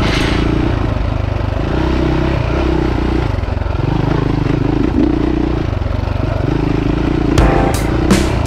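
Enduro motorcycle engine running on a rocky trail, its revs rising and falling over and over as the throttle is worked, with clatter from the bike over the rocks. Near the end, music with a steady drumbeat comes in.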